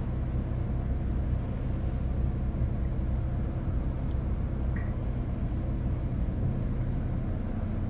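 Steady low hum of a car idling, heard from inside the cabin, with a couple of faint light clicks about four and five seconds in.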